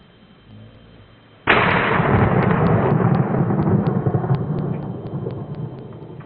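A single shotgun shot from an over-and-under about a second and a half in, followed by a long rolling rumble that slowly fades over the next few seconds.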